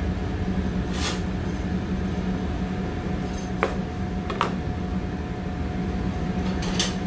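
A steady low mechanical drone of commercial-kitchen machinery runs throughout, over which a chef's knife knocks sharply on a plastic cutting board a few times as a lime is cut in half.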